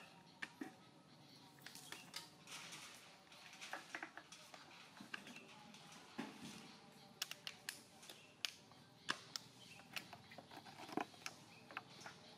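Faint, irregular clicks and ticks scattered over a low background hiss.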